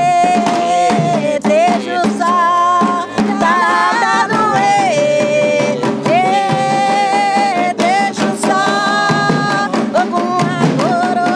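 A voice singing a chant in long, wavering held notes, with drum strikes underneath.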